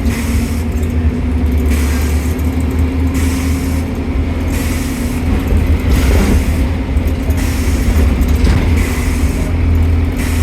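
Bus engine running, heard from inside the bus as a steady low drone. A hissing noise swells and fades over it about every second and a half.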